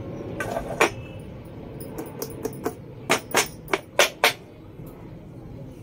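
Inverted stainless steel bowl knocked against a wooden board to loosen a block of steamed egg: one sharp knock about a second in, then a quick run of about eight sharp taps that stops after about four seconds.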